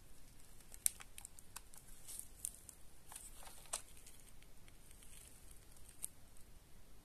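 Faint plastic clicks and handling rustles from a Philips Lumea IPL device and its snap-on attachment being worked off by hands in latex gloves. The clicks come irregularly, in small clusters through the first few seconds, with one more near the end.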